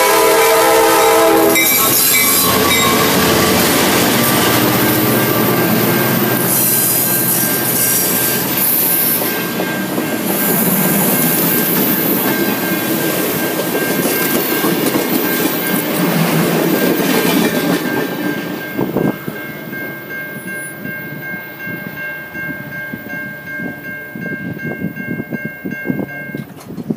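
EMD F59PH diesel locomotive's horn chord ending about a second and a half in, then the locomotive and passenger cars rolling close by, the wheels briefly squealing. As the train pulls away and the noise drops, the level-crossing bells ring steadily.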